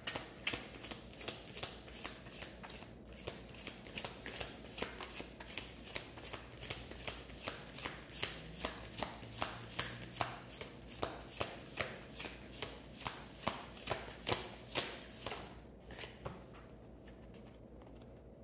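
A deck of tarot cards being shuffled by hand: a long, even run of soft card clicks, about three a second, that stops about three-quarters of the way through.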